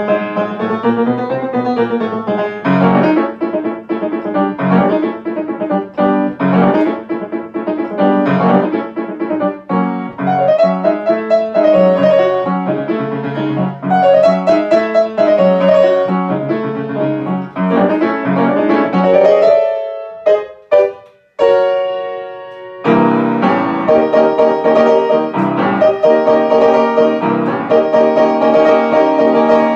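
Solo grand piano playing a brisk, syncopated novelty piano piece in dense runs of quick notes. About twenty seconds in, the playing breaks off into a couple of short chords and one held chord, then the fast playing resumes.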